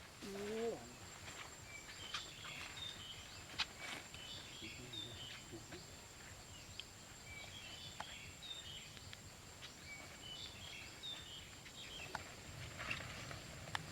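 Forest ambience: a bird's short chirping phrases, repeated in several bursts a few seconds apart, over a steady high insect whine, with a few scattered faint clicks.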